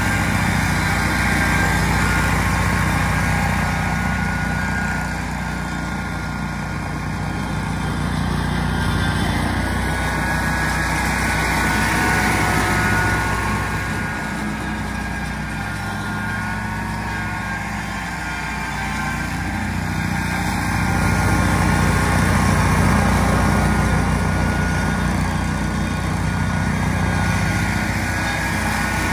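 Altoz TSX561 tracked stand-on mower running steadily with its blades engaged, cutting wet grass. The engine and deck sound rises and falls in loudness several times as the mower moves about.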